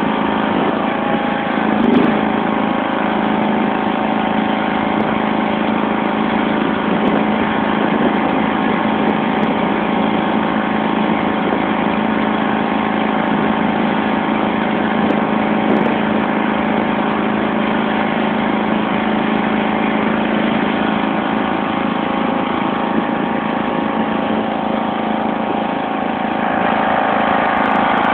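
1991 John Deere LX176 lawn tractor's 14 hp OHV engine running steadily while the tractor plows snow with its front blade.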